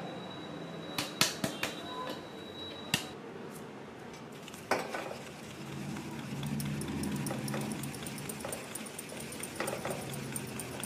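A steel vessel knocks against a bowl as ground spice powder is tapped out of it, a few sharp clinks in the first three seconds and one more near five seconds. From about six seconds, ground garam masala is shaken through a hand sieve over a plastic bowl: a steady rustling rasp with quick light ticks.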